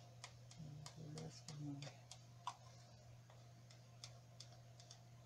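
Near silence: room tone with a steady low hum and faint, irregular small ticks.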